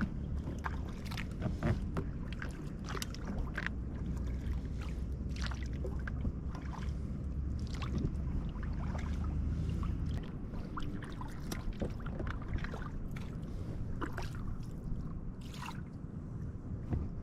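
Paddling an inflatable kayak: irregular paddle-blade splashes and water dripping off the paddle, over a steady low rumble that eases about ten seconds in.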